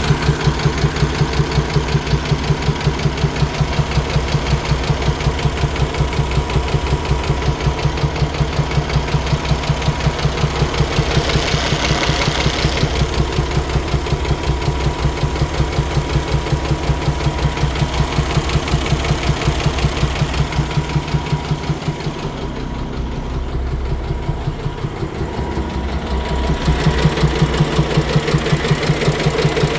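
PACCAR MX-13 inline-six diesel engine of a Peterbilt 579 idling with a steady, rhythmic knock, about four a second, which the owner presents as a knock problem. A brief hiss comes in about twelve seconds in, and the sound softens for a few seconds past the twenty-second mark before returning.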